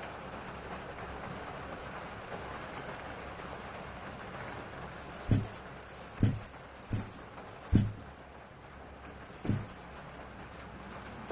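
Small metal bells jingling in short bursts, each with a soft low thump, about five seconds in and then several more at uneven intervals of under a second, after a stretch of steady hiss.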